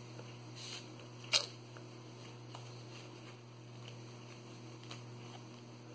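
Quiet handling of grosgrain ribbon, needle and thread during hand sewing: a short rasp about a second and a half in and a few faint ticks, over a steady low hum.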